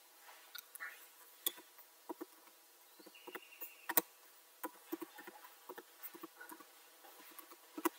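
Computer keyboard being typed on: scattered, irregular key clicks, with one brief high tone a little after three seconds.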